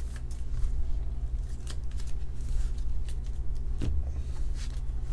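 Trading card in a clear plastic sleeve being handled and set down on the table: light plastic rustles and small clicks, with a soft knock about four seconds in, over a steady low hum.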